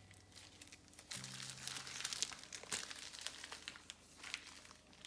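Plastic ice-cube bags filled with red currant juice crinkling as gloved hands pick them up and handle them, a dense run of crackles that grows louder from about a second in.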